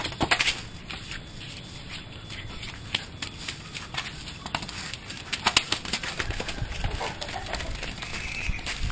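Light, irregular taps and knocks of a small plastic ball being kicked and rolling along a rough concrete path, with a toddler's plastic sandals scuffing, over a steady outdoor hiss.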